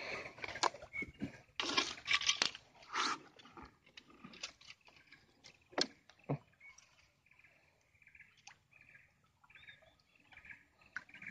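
Small wooden boat being pulled through reeds and branches: rustling and scraping of vegetation in the first few seconds, then two sharp wooden knocks. After that it goes quieter, with faint repeated high chirps.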